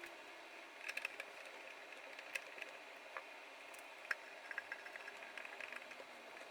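Scattered light clicks and taps of small tools and parts being handled at a workbench, a few sharper ticks among them.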